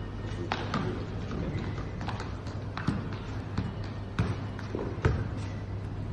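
A football being kicked and juggled on a hard marble floor: irregular thumps of foot on ball and ball on floor, roughly one a second, over a steady low hum.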